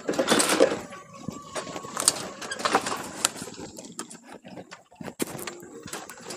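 Landworks electric utility cart, loaded with pallet wood, rolling over rough ground: irregular knocks, clatters and rattles from the steel mesh bed and the loose boards, loudest near the start, with a brief thin whine about a second in.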